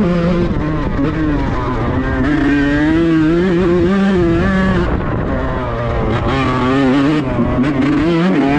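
Kawasaki Ninja grasstrack motorcycle engine running and being revved, its pitch climbing and falling with the throttle.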